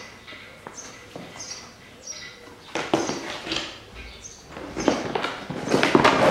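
A car trunk liner mat being handled and laid down on the concrete floor under the engine stand: rustling, scraping and knocks, loudest near the end. Short high chirps repeat in the first couple of seconds.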